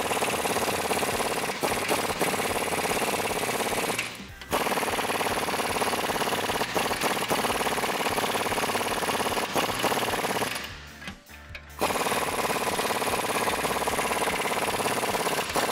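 Impact wrench hammering 22 mm nuts down onto leaf-spring U-bolts, running in three long bursts with short breaks about four and eleven seconds in.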